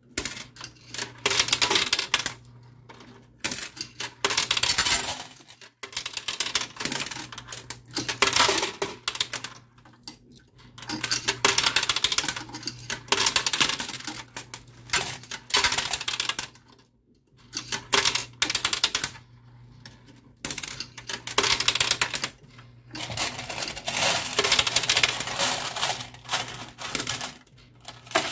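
Quarters clattering in a coin pusher arcade machine: bursts of rapid metallic clinking as coins drop onto the pusher shelves and stacks, separated by short pauses, over a steady low hum.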